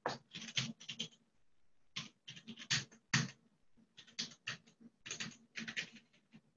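Typing on a computer keyboard: short irregular clicks of keystrokes in small clusters, with brief pauses between them.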